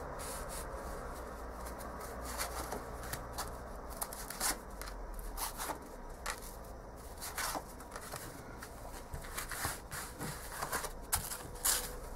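Plastic tarot cards being handled and shuffled in the hands: scattered light clicks and rustles as the slick cards slide and tap against each other, a few sharper snaps near the end.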